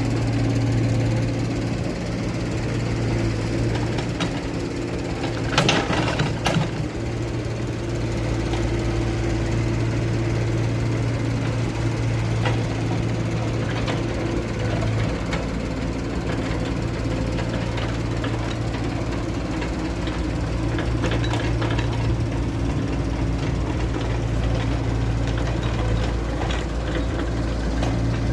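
An engine running steadily with a constant low hum, with a brief burst of sharp clattering knocks about six seconds in.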